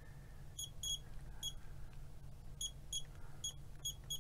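Short, high electronic beeps, about nine in irregular clusters, from a bench signal generator as its knob is turned step by step to raise the output frequency. A low, steady hum runs underneath.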